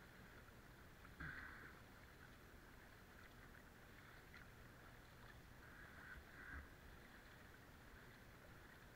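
Faint kayak paddling: soft splashes of paddle strokes in the water over a low hiss of water at the bow, with two slightly louder strokes about a second in and around six seconds in.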